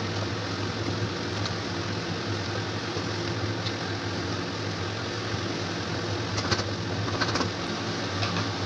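A wooden spatula stirs a steaming spinach and lentil mixture in a pan on a gas hob, over a steady low hum and hiss. A few light taps come near the end as the spatula is lifted out.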